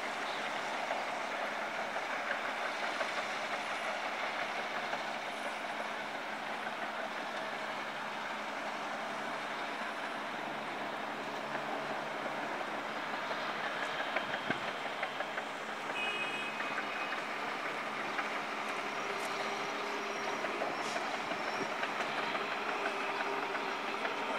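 Steady mixed noise of road-construction machinery and traffic: engines running, with a few sharp knocks about halfway through.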